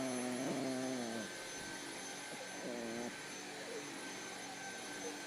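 A Chihuahua growling at a running cordless Dyson vacuum cleaner in a long, wavering growl, then two shorter ones about three seconds in. Under it is the vacuum's steady high whine and hiss.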